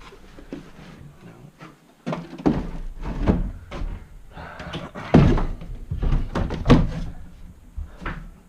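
Beehive boxes and lids being handled and set down: a string of about half a dozen knocks and thuds, the heaviest about five seconds in and again nearly two seconds later.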